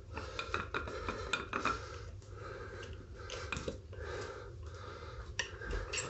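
Metal screwdriver scraping and clicking against the scooter's wheel rim as it is worked between the solid rubber tyre and the rim, in short repeated strokes about two a second.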